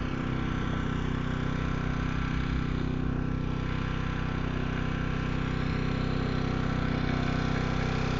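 An engine idling steadily, an even low hum that holds the same speed throughout.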